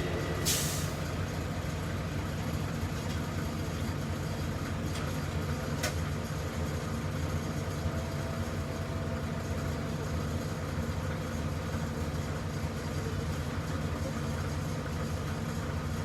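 Heavy diesel engine running steadily at a low, even speed. A short hiss comes about half a second in, and a sharp click near six seconds.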